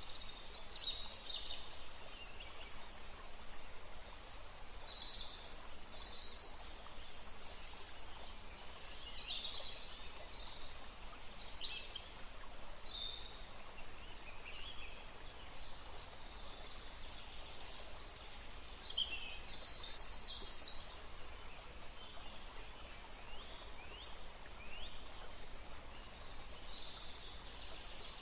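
Wild birds chirping in short, scattered calls, some of them quick falling notes, over a steady background hiss and low rumble.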